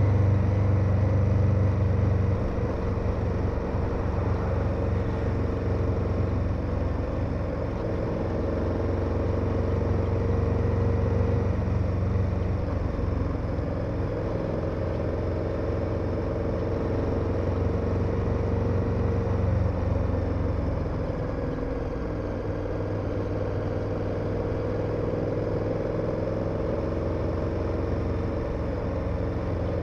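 KTM 1290 Super Adventure's V-twin engine running as the motorcycle rides along, with wind and road rush. The engine note drops about two seconds in and changes again about twenty seconds in, as the throttle or gear changes.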